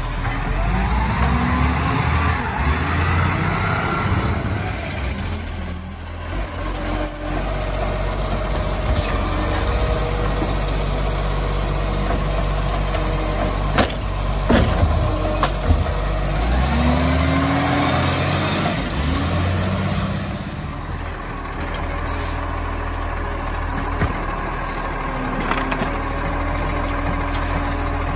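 Side-loader garbage truck's diesel engine running while its hydraulic arm lifts and tips wheelie bins. Twice the engine note rises and falls in a whine with the arm's cycle. There are bursts of air hiss and a sharp clunk of a bin about halfway through.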